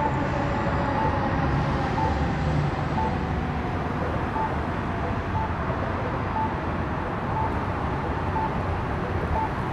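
Fire truck's diesel engine running steadily amid street traffic noise, with a faint short beep repeating about once a second.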